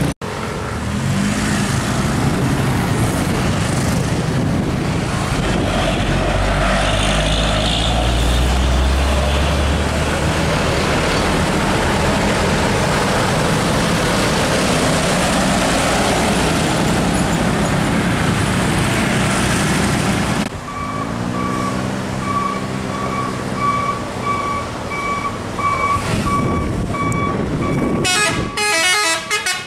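Heavy diesel trucks passing close by, with loud engine and tyre noise. About two-thirds of the way through, a truck engine drones at low revs while a horn holds one note with short breaks, and near the end a multi-tone horn sounds several quickly changing notes.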